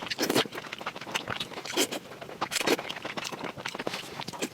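Close-miked eating sounds: chewing and mouth smacking on fatty meat, in short irregular bursts.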